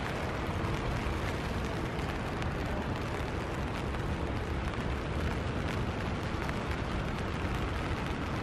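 Steady outdoor noise: a low rumble with a hiss above it, unbroken and without distinct events.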